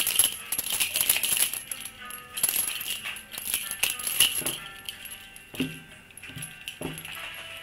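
A hand-shaken rattle, shaken fast in a dense jingling rattle for about four and a half seconds, then in a few slower, sparser shakes, with soft music underneath.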